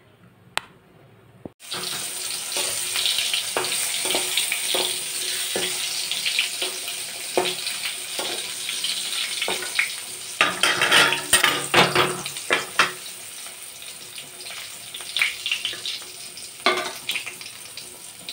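Eggplant slices frying in hot oil in an iron kadai: a steady sizzling hiss with spitting crackles. It starts abruptly about a second and a half in, and the crackling comes thicker around the middle.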